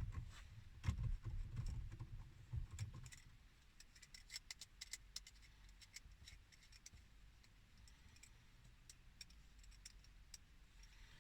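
Faint handling noises at a car's centre console by the gear shifter: a few soft knocks in the first few seconds, then many small irregular clicks and scratches of hands on the plastic trim and shifter.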